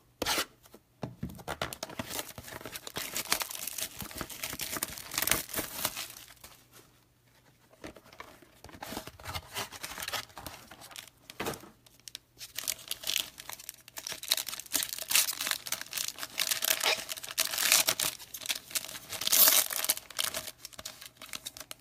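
Plastic wrap being torn and crumpled off a sealed box of trading cards, irregular crinkling and tearing with a short lull partway through.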